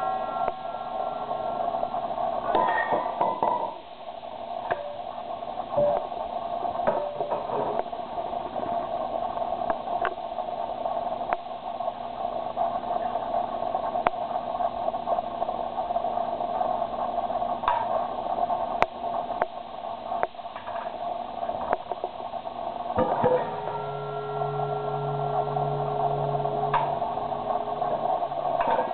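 Stainless steel bowls and small metal measuring cups clinking and knocking together as a baby handles and bangs them. A struck bowl rings on with sustained tones near the start and again for several seconds about 23 seconds in, over a steady background noise.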